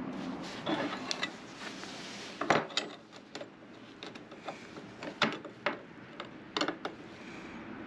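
Steel parts knocking and clinking as they are handled, a dozen or so sharp knocks at uneven intervals, the loudest about two and a half and five seconds in.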